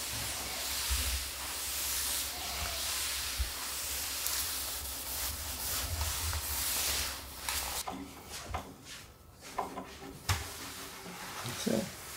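String mop swishing and rubbing across a wooden floor in a steady hiss. About eight seconds in this gives way to quieter scattered clicks and knocks of a screwdriver and metal drawer parts being handled.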